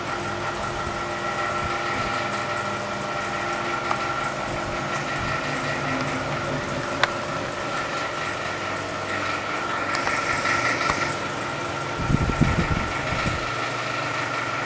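Delta 3D printer running: a steady machine hum and whine of motors and fan, with some low thumps near the end.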